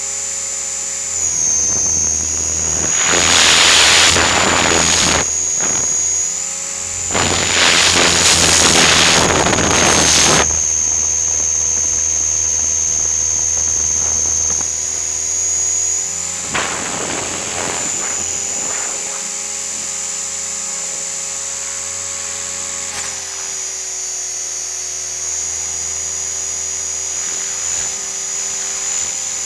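Align T-REX 500 electric RC helicopter heard from its own nose: a steady high motor-and-gear whine over the rotor's hum, its pitch stepping a few times as the head speed changes. Loud rushing air noise sweeps over it twice in the first ten seconds and again around seventeen seconds.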